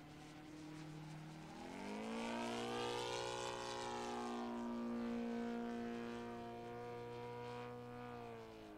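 Saito FG57TS four-stroke twin-cylinder gas engine and propeller of a model aerobatic biplane in flight. It runs low for a second and a half, then opens up with a sharp rise in pitch and loudness, holds high power through most of the manoeuvre, and drops back in pitch near the end.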